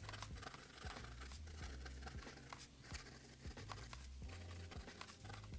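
Soft fine nib of a Platinum 3776 fountain pen scratching across paper in quick, irregular strokes as fast handwriting is done; the nib is really scratchy. A low hum lies underneath.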